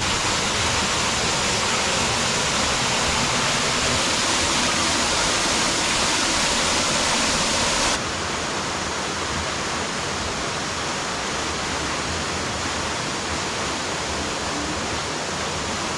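Waterfall rushing steadily. The level drops slightly about halfway through.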